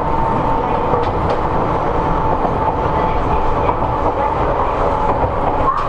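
Inside a Seibu 101-series resistance-controlled electric train's motor car running at steady speed. Steady rumble of wheels on rail with a steady whine from the traction motors and gears, and a few faint clicks over the rail joints.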